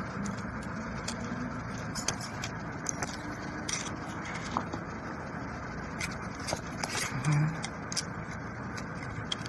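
Light metallic clicks and scrapes of spanners working on the electric motor of a hydraulic power pack, scattered irregularly over a steady background hum.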